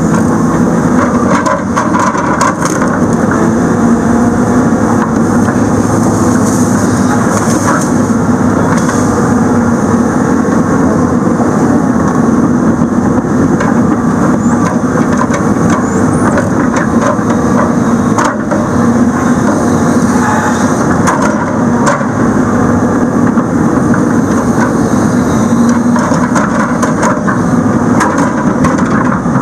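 Heavy logging machine's diesel engine running steadily at working speed while its hydraulic boom swings the Rotobec grapple saw head and clamps it onto a stump.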